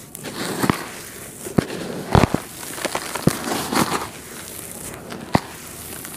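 Dry, powdery red dirt being crumbled and crushed by hand in a plastic tub: a gritty hiss of dirt pouring and sifting through fingers, broken by several sharp crunches. The loudest crunch comes about two seconds in.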